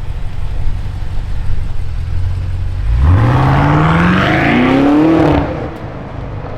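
BMW X5M F85's twin-turbo V8 through a fresh Fi Exhaust catback, idling low and then, about three seconds in, accelerating hard. The revs climb, dip at a gear change and climb again before the throttle is let off near the end.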